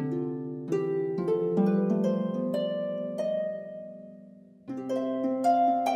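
Background music of plucked-string notes, harp-like, climbing step by step in a slow upward run. The run fades out about four seconds in, and a new phrase starts shortly after.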